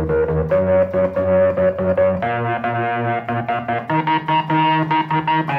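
Moog Memorymoog analog polyphonic synthesizer playing a preset: a bright, buzzy tone in quickly repeated notes, stepping up in pitch a few times.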